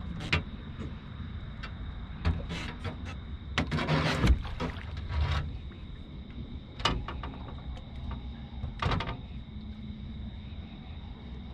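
Irregular knocks, rattles and scrapes of handling on a fishing boat as a freshly caught blue catfish is brought aboard and gripped, with the busiest stretch and loudest thump about four seconds in and single knocks later on. A faint steady high tone and a low hum run underneath.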